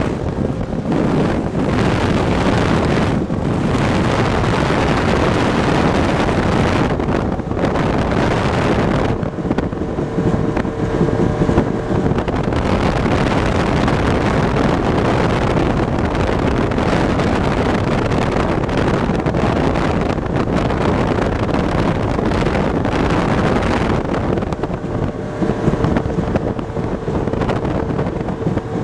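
Speedboat running at speed over choppy water: a steady rush of wind buffeting the microphone over engine and hull noise.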